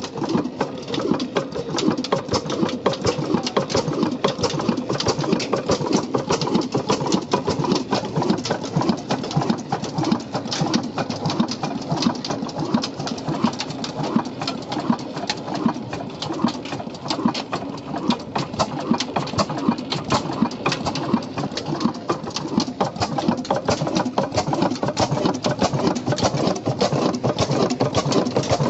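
Old single-cylinder horizontal stationary diesel engine running steadily, its valve gear and moving parts making a rapid, even mechanical clatter.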